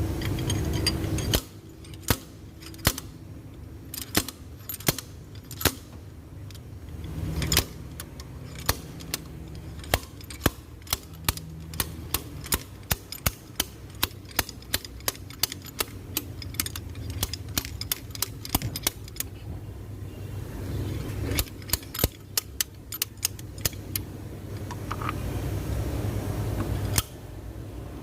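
Hand tools working on an engine's injectors: a ratchet wrench clicking in runs of a few clicks a second, with metal clinks in between. A steady low hum is heard for about the first second and again near the end.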